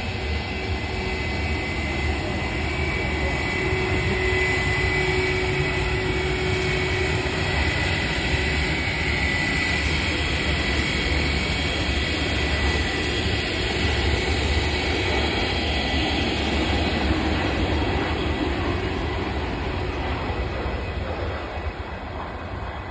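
Jet airliner's engines running as it moves along the runway: a steady rumble and rush with a high whine over it, easing off near the end.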